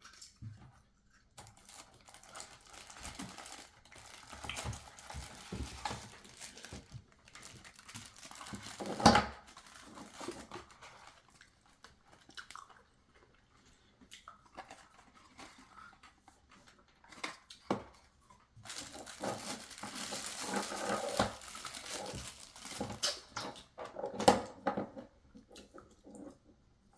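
Watch packaging being handled and opened: irregular crinkling and rustling, with occasional sharp knocks, the loudest about nine seconds in and another near the end.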